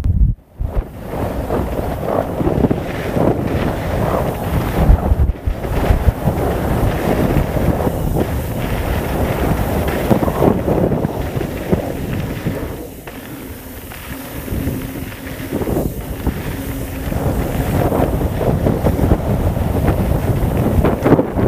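Wind buffeting the microphone, rising and falling in gusts, with a heavy low rumble.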